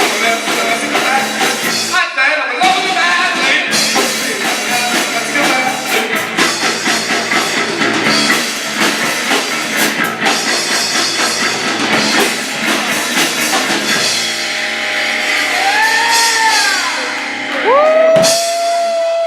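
Music with a drum kit and a singing voice. In the last few seconds, high tones swoop up and down.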